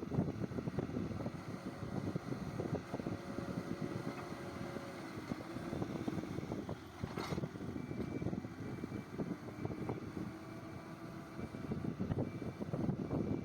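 A vehicle engine running steadily, with wind buffeting the microphone, and a sharp click about seven seconds in.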